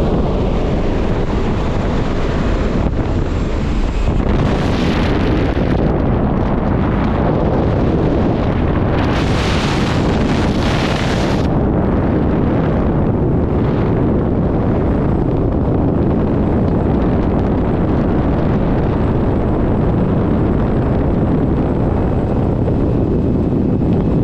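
Single-engine propeller plane's engine and propeller running, with a loud steady rush of wind through the open cabin door buffeting the microphone. The wind hiss swells briefly about five seconds in, and again for a couple of seconds around ten seconds in.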